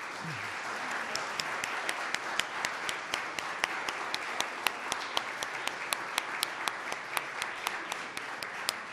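Audience applauding. One person claps close to the microphone, and their sharp claps stand out above the rest at about four a second.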